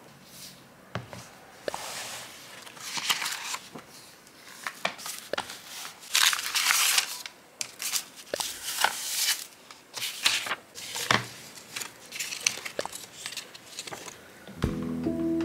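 Paper being handled: receipts, tickets and paper slips rustling and crinkling as they are shuffled and laid into a notebook, with pages turned and small taps and clicks at uneven intervals. Music comes in near the end.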